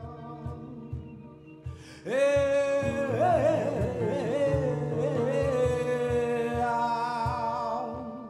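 Flamenco cante for a siguiriya: about two seconds in, a singer enters loudly with a long held, wavering melismatic line over quieter guitar and violin accompaniment.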